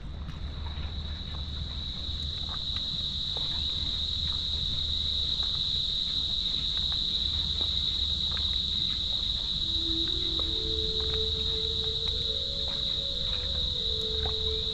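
A chorus of forest insects: one steady, high-pitched buzz that swells louder over the first few seconds, over a steady low rumble.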